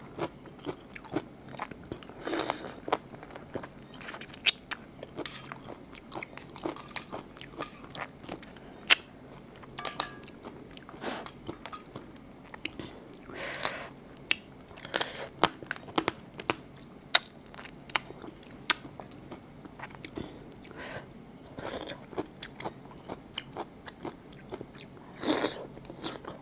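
Close-miked eating sounds of raw blue swimmer crab being eaten by hand: wet chewing, sucking and lip smacks, with many sharp clicks and a few longer, noisier sounds scattered throughout.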